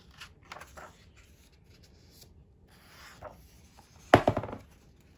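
Paper pages of a leatherbound hardcover book being turned by hand: soft swishes and rustles, then a louder, crisper page flap about four seconds in.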